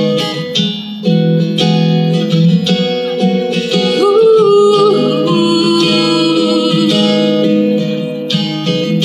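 Steel-string acoustic guitar played live as a song accompaniment. A woman's voice holds a sung note from about four seconds in.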